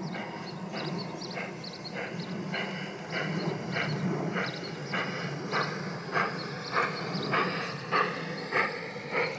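G-scale garden-railway model steam train rolling slowly past: a low running hum with regular clacks, about one and a half a second, that get louder in the second half.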